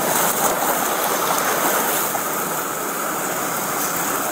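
Flash floodwater rushing fast across a road, a steady rush of moving water, picked up by a police body camera's microphone.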